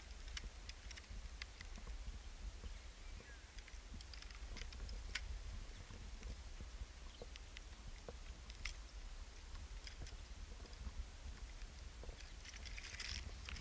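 Wind buffeting the microphone as a steady low rumble, with scattered faint clicks and crunches of loose volcanic rock and a louder scraping crunch near the end.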